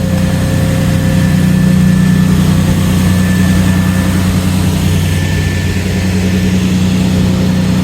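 A vehicle engine idling steadily, with an even low hum.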